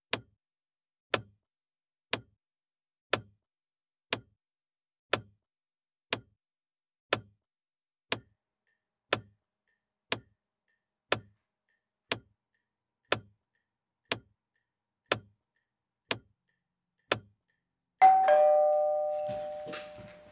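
A clock ticking once a second, each tick a sharp click with silence between. About eighteen seconds in, a two-note ding-dong doorbell chime, high then lower, rings out.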